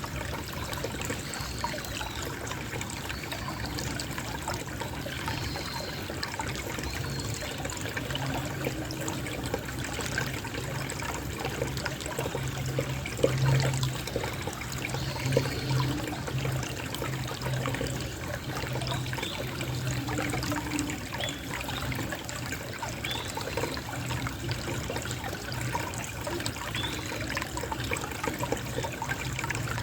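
Small stream of water trickling steadily, with faint short high chirps every few seconds and a low hum that comes and goes through the middle, loudest about halfway.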